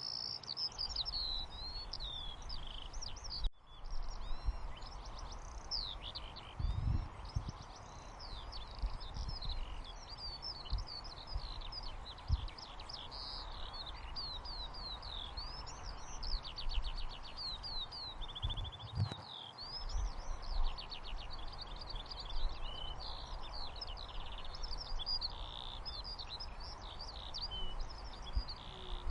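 A chorus of small songbirds chirping and twittering continuously over a steady background hiss, with a momentary gap about three and a half seconds in.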